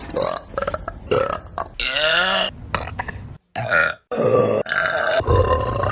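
A series of loud burps one after another, with abrupt breaks between them. There is a long, wavering burp about two seconds in.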